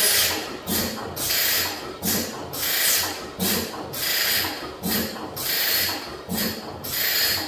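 15 hp Fairbanks Morse Type N engine being turned over by hand at its flywheel. It makes a rhythmic hissing puff about twice a second, with a stronger one about once a second, over mechanical clatter from the engine.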